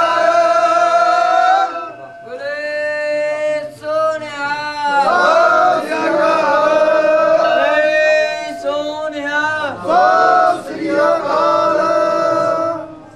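Men's voices singing a Sikh devotional hymn together, in long held phrases broken by short pauses every few seconds.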